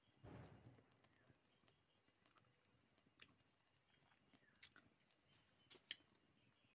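Near silence, with a brief faint rustle at the start and a scatter of faint small clicks.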